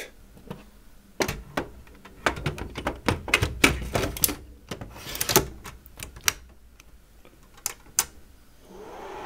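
Plastic hard-drive trays, each holding a Western Digital Ultrastar HC330, clacking and clicking as they are slid into the bays of a Synology RS422+ rackmount NAS and latched shut. Two sharp clicks come near the end, then the unit's fans start to hum as it powers on.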